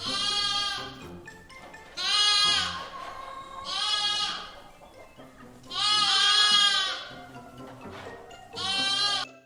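Sheep bleating five times, each call under a second long, over light background music.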